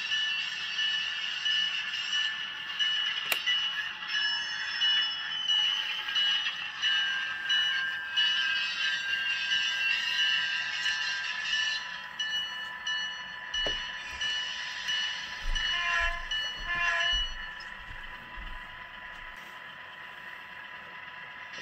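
LokSound sound decoder in a model diesel locomotive, playing its diesel engine sounds through the locomotive's small speaker as it runs along the layout. There are several steady high tones, a cluster of short sounds and low thumps after about two-thirds of the way in, and then the sound drops off.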